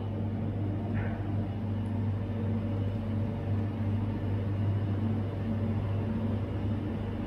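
Steady low electrical hum with an even, unchanging pitch, from the refrigerated glass pastry display counters of a bakery.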